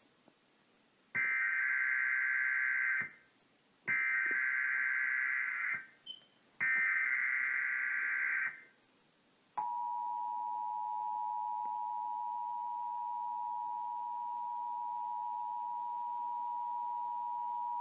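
Emergency Alert System test tones: three bursts of SAME digital header data, each about two seconds long with short gaps between them. About halfway through, the two-tone EAS attention signal starts, a steady double-pitched tone held for about eight seconds.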